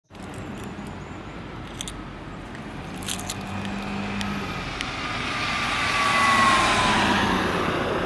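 A road vehicle passing by: its tyre and engine noise swells to a peak about two-thirds of the way through and then starts to fade, with a thin whine that drops in pitch as it goes past.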